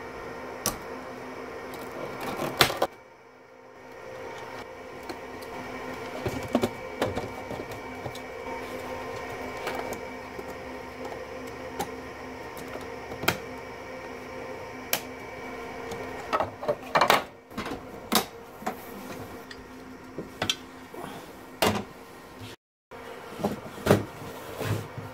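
Scattered clicks and clacks of plastic and metal computer parts being handled: cable connectors, a RAID controller card and a hard-drive hot-swap tray. Under them runs a steady machine hum with several fixed tones.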